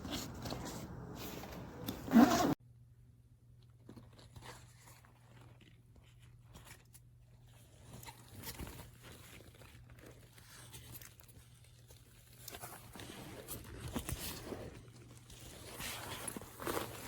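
Handling noise from a fabric laptop backpack: rustling, scraping and zipper-like sounds, with a loud scrape about two seconds in. After that it cuts to scattered, quieter clicks and rustles over a steady low hum.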